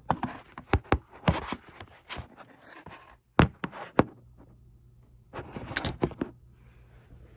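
Handling noise at close range: a string of sharp clicks, knocks and light thumps as objects are moved about and set down, with a short pause in the middle before another cluster of clicks.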